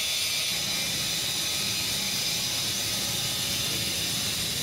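A steady hiss, strongest in the high range, over a faint low rumble, with no distinct events.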